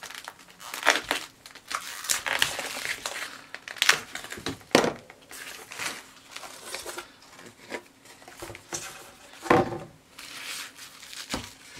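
Plastic stretch wrap being slit with a knife and pulled and torn off a cardboard package, crinkling irregularly, with a few sharper, louder crackles and cardboard being handled.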